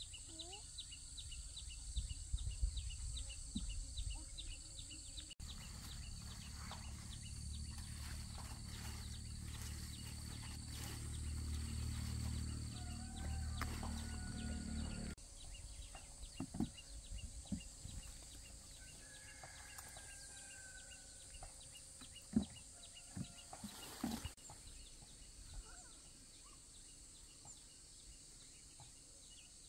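Field ambience of insects: a steady high-pitched drone with fast ticking chirps, plus a few short bird whistles. A stretch of low rumble runs through the middle and stops abruptly, and scattered light knocks come in the second half.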